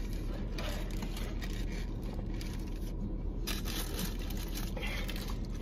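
Paper burger wrapper rustling and crinkling in stretches as the burgers are handled and eaten. Under it runs a steady low hum inside the car.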